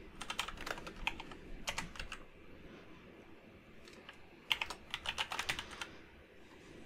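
Typing on a computer keyboard: a run of quick keystrokes for about the first two seconds, a pause, then another short run a little past the middle.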